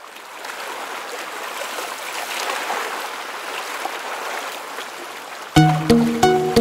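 Water rushing and splashing past a moving sailing yacht's hull, a steady hiss that fades in at the start. About five seconds in, music with a regular beat starts abruptly and becomes the loudest sound.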